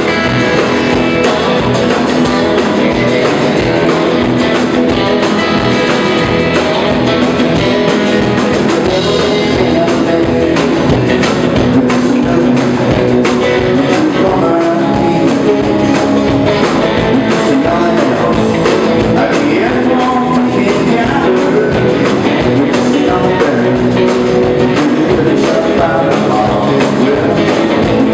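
Live country band playing a song: electric and acoustic guitars over a steady drum-kit beat.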